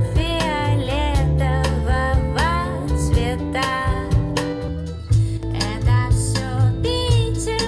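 A song with singing, guitar and a steady bass beat played back through Radiotehnika S-90B loudspeakers, switching about five seconds in to Amfiton 50AC-022 speakers.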